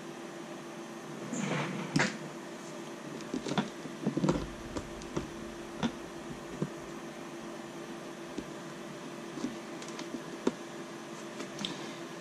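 Scattered small clicks and taps of 3D-printed plastic gimbal parts and a servo being handled on a workbench, busiest in the first half and sparser later, over a steady room hum.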